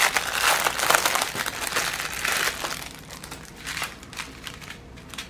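Plastic packaging crinkling as it is handled and opened, dense crackling for the first half, then thinning to a few scattered crinkles.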